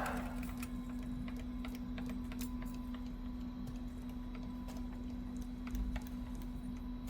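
Metal-cutting lathe with its spindle running: the cutting noise dies away at the start, leaving a steady machine hum with faint scattered ticks.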